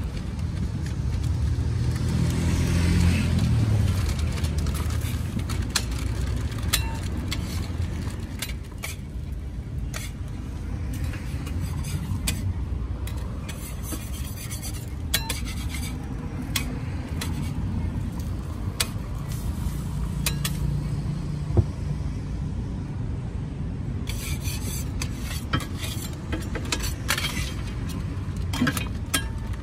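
Burger-stall cooking sounds: a metal spatula scraping and tapping on a flat-top griddle where an egg-wrapped burger sizzles, and paper rustling as burgers are assembled and wrapped. Many sharp clicks and taps run throughout, over a low rumble that swells around three seconds in and again around twenty seconds.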